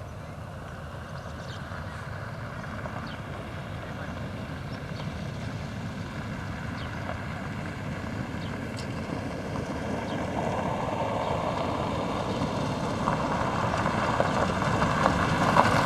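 3TE10M three-section diesel locomotive approaching, its two-stroke 10D100 diesel engines running with a low rumble that grows steadily louder.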